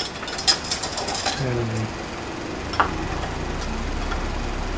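Light metallic clicks and clinks of small hand tools handled on a steel plate, several in quick succession in the first second and a half and one more near three seconds in. A low steady hum sets in about three seconds in.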